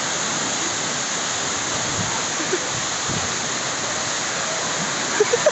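Waterfall, water pouring and crashing in a steady, unbroken rush.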